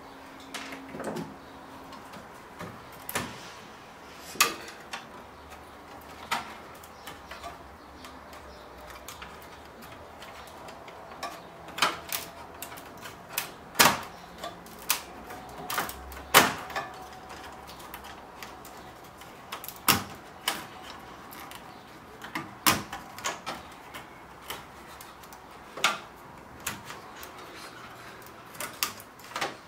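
Irregular clicks, taps and knocks of hands handling the parts of an opened flat-panel TV: the sheet-metal chassis, circuit boards and a ribbon-cable connector, with a sharper knock every few seconds.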